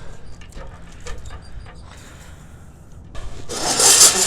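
Light clicks and knocks of hardware being handled, then a loud scraping rush lasting about a second near the end.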